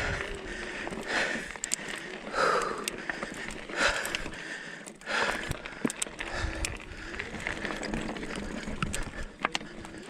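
A mountain biker breathing hard while climbing, with a deep breath about every second and a half, over sharp clicks and rattles from the bike on rocky ground.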